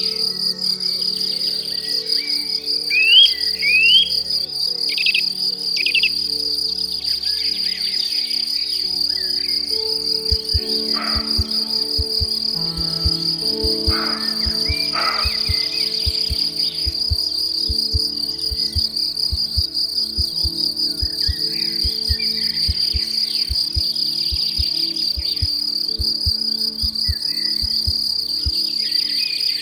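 Steady high-pitched trilling of crickets, with a few short rising bird chirps in the first few seconds, over soft background music of held chords.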